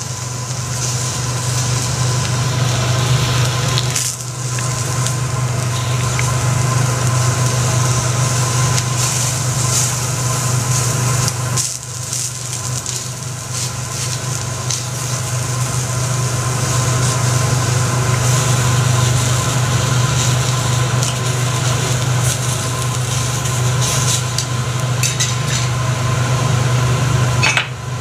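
Food sizzling and frying on a teppanyaki iron griddle, a steady crackling hiss with occasional clicks of utensils, over a constant low hum.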